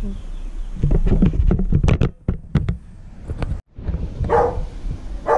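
Plastic power-bank shell being pried apart, a quick run of sharp clicks and cracks as the 18650 cell pack and circuit board are worked loose, followed by two short louder bursts near the end.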